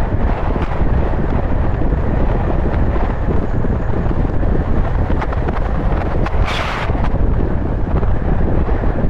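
Wind buffeting a moving car-mounted 360 camera's microphone, a steady low rumble with road noise beneath it. About six and a half seconds in there is a short hiss.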